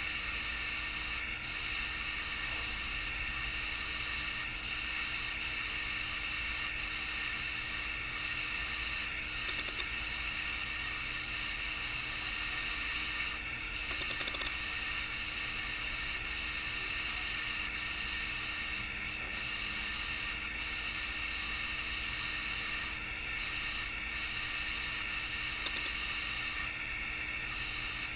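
Steady hiss of background noise with a faint low hum underneath, unchanging throughout; no speech.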